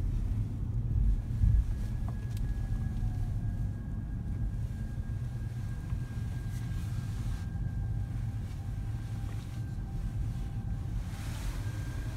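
Toyota Crown Hybrid driving slowly, heard from inside the cabin: a steady low road and tyre rumble with a faint, thin, steady whine above it.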